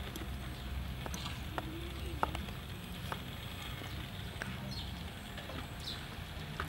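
A few sharp, irregular taps of a cleaver on a wooden cutting board, over a steady low rumble and a few short, high, falling chirps.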